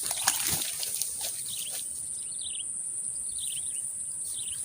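Outdoor nature ambience: a steady high-pitched insect drone, with a bird repeating short falling chirps about once a second. A couple of brief clicks come in the first half-second.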